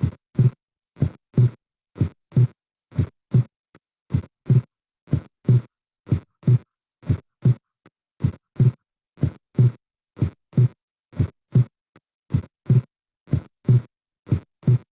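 Recorded heart sounds over the pulmonary area: a steady lub-dub of short low thuds, with the second heart sound split into two small sounds close together, the split S2 being taught.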